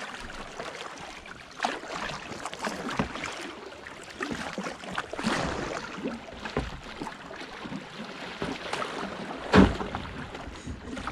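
Water splashing and lapping around a kayak moving through rippling creek current, with scattered short splashes. One loud knock about nine and a half seconds in.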